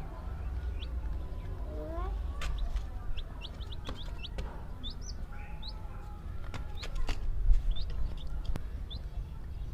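Baby chicks peeping: many short, high, rising chirps coming one after another in irregular bursts, with a few sharp clicks in between.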